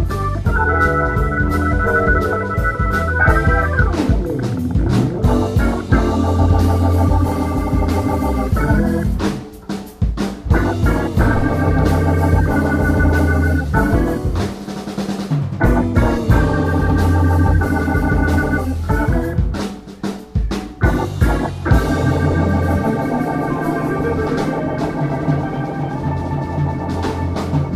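Live rock band playing: organ-toned keyboard chords held over drums, electric guitar and bass, with short breaks in the playing about ten and twenty seconds in.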